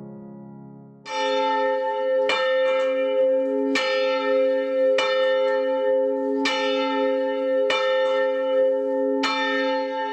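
A single church bell tolling, starting about a second in and struck seven times at a steady pace of about one stroke every second and a half, each stroke ringing on under the next. A held piano chord fades out just before the first stroke.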